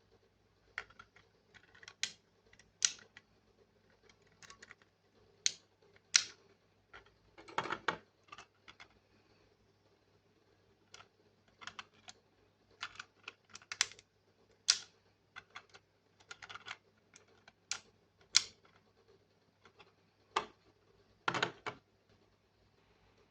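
Irregular clicks, taps and short rustles of a toy set's cardboard box and plastic parts being handled and opened, with several louder knocks scattered through.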